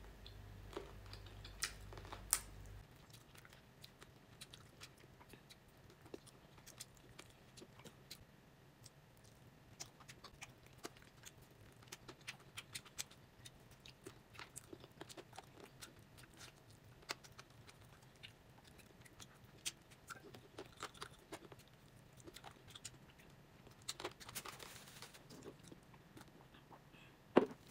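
Faint sounds of a person biting and chewing caramel-glazed chicken wings: a scatter of small wet clicks and smacks. Near the end, a denser stretch of sipping from a glass.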